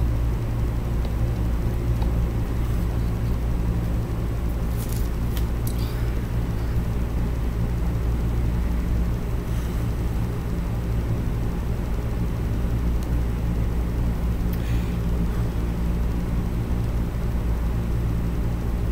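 Steady low hum and rumble of background room noise, with a few faint soft clicks.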